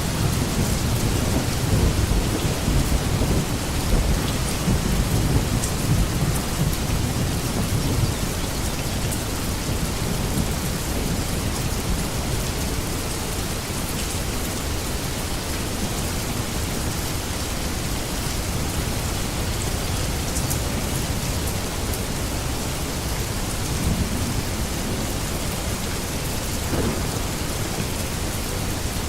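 Steady rain hissing down, with a low rumble of thunder over the first several seconds that fades away, and a brief, fainter rumble near the end.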